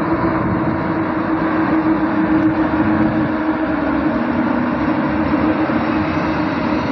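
EU07 electric locomotive rolling past at close range: a steady hum over the noise of its wheels on the rails.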